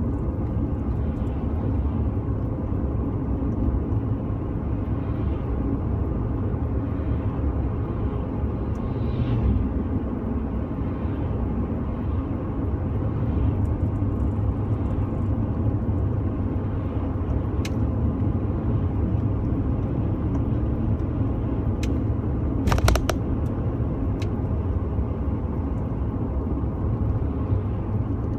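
Steady road and engine rumble heard inside a moving car's cabin, with faint swells now and then as oncoming cars pass. A brief rattle of clicks comes about three quarters of the way through.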